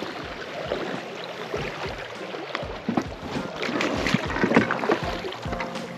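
Water sloshing and splashing around a boat on a river, with irregular knocks and clunks against the boat. Music fades in near the end.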